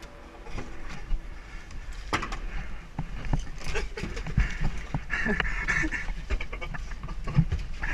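Boots and gear knocking and scraping on a wooden ladder and plywood tower as a player climbs inside, with breathing close to the microphone.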